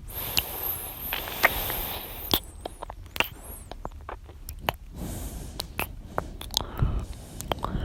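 Close-miked ASMR mouth sounds: wet clicks and smacks scattered throughout, with an airy breath over the first two seconds and low breaths near the end.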